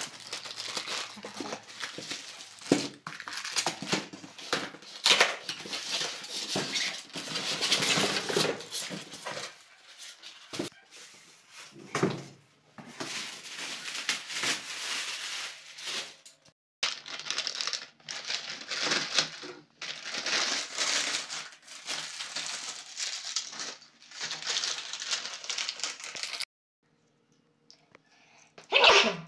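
Plastic wrapping and packaging crinkling and rustling by hand in irregular bursts, as a boxed appliance is unpacked. It falls silent near the end, followed by one brief loud sound.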